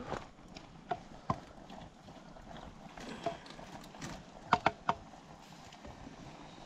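Scattered light knocks and clinks, a few with a brief ring, including three in quick succession about four and a half seconds in.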